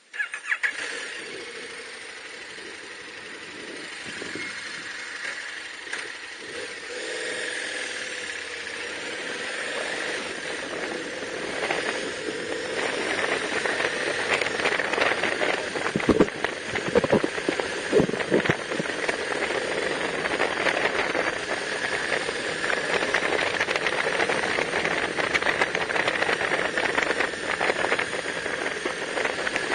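A motorcycle running along a rough gravel road, engine noise mixed with a steady rattling hiss that builds up, with a few sharp knocks from bumps about halfway through.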